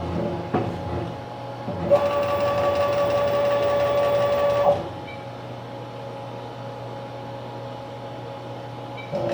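Stepper motor driving the ballscrew of a CNC-converted PM-727M benchtop mill as an axis is jogged: a steady whine for a little under three seconds, starting about two seconds in. Near the end a second move starts, whining at a lower pitch.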